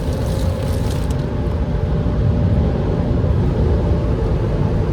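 Steady rush of a blower on its heat-blast setting, blasting air to clear snow off a car, with a faint steady whine.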